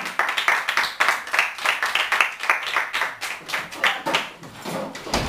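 A small group of people clapping their hands, quick and uneven, thinning out near the end.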